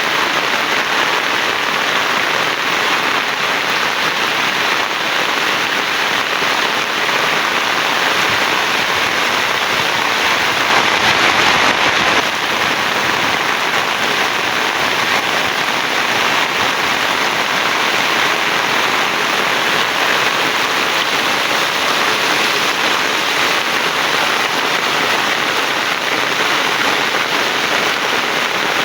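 Heavy rain pouring steadily in a dense, even hiss, swelling a little about ten seconds in.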